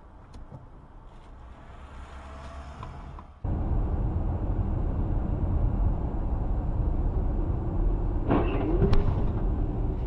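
Steady road and engine rumble of a moving car as picked up by a dashcam. It is quieter for the first three seconds or so, then jumps abruptly louder and stays steady, with a brief louder pitched sound about eight seconds in.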